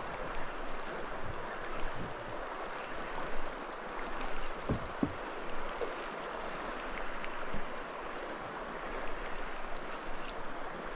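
Steady rush of flowing river water, with a couple of soft knocks about five seconds in.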